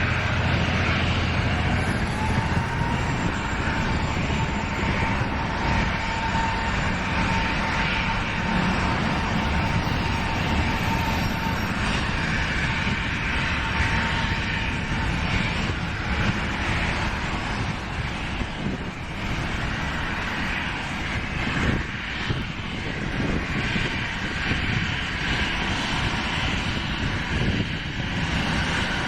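Jet airliner engines running with a steady, dense roar. A thin steady whine sits over it for roughly the first half.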